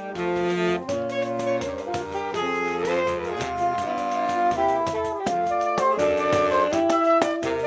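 Saxophone quartet of four different saxophones playing a Brazilian tune in close harmony, with light percussion keeping time.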